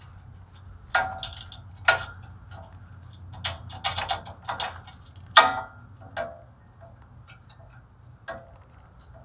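Irregular metallic clicks and clinks, some with a short ring, as steel parking brake shoe hardware (spring clips and shoes) and hand tools are handled and knocked together. The loudest clink comes about five and a half seconds in.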